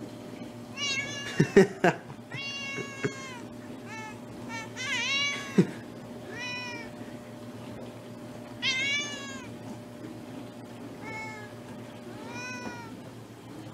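Domestic cat meowing repeatedly: about eight drawn-out meows, each rising and falling in pitch. A few sharp knocks come about one and a half seconds in and again near the middle, and these are the loudest sounds.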